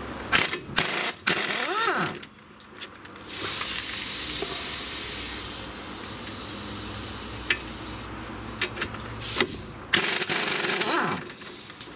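Pneumatic impact wrench running on the caliper bracket bolts of a car's front hub: a loud steady air hiss for about four seconds in the middle, with metal clicks and knocks from the tool and bit on the bolt before and after it.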